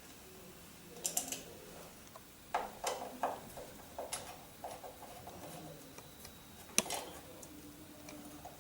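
A hand Phillips screwdriver working the screws out of a metal door keep: quiet, irregular clicks and short scrapes of metal in small clusters, with one sharper click about two-thirds of the way through.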